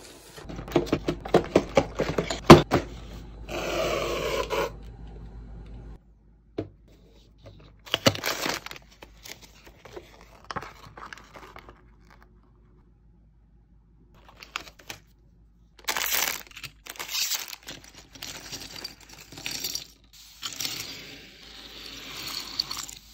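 Hands unpacking a small plastic model kit: sharp clicks and rattles of plastic parts and the cardboard box in the first few seconds, a brief tearing scrape, then scattered rustling and crinkling of packaging and the paper instruction sheet.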